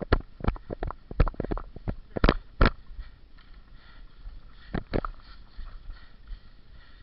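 A run of sharp clicks and snaps, irregular and bunched close together for about the first three seconds, then only a few scattered ones.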